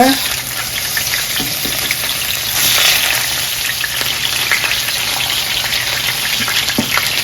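Salmon slices sizzling and spattering in hot oil in a frying pan, a dense crackle that swells briefly about two and a half seconds in.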